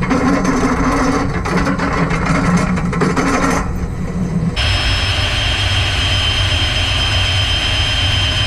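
Drill press running a step drill bit through a steel truck crossmember, a rough grinding chatter over the motor's steady drone. About four and a half seconds in, this gives way to a different steady machine hum with a constant high whine.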